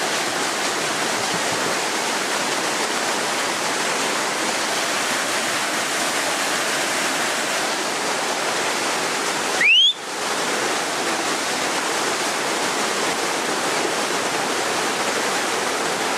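Whitewater rapids rushing steadily with an even, continuous noise of churning water. Just under ten seconds in, a brief rising whistle sounds, and the water noise drops away for a moment before it returns.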